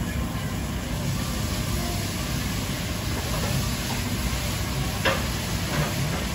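A kitchen knife slicing thin rounds of citrus on a plastic cutting board over a steady low rumble and hiss. The blade gives one sharp tap on the board about five seconds in and a fainter tap shortly after.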